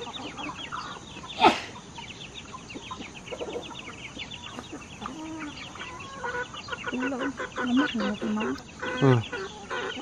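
A flock of free-range chickens clucking and peeping as they are hand-fed. Quick high peeps run throughout, lower clucks get busier in the second half, and there is one sharp knock about one and a half seconds in.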